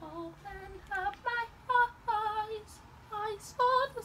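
A woman singing a melody unaccompanied, in short phrases with a few held, wavering notes.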